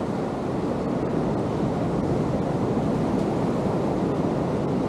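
Ocean surf washing steadily onto the beach, mixed with wind on the microphone.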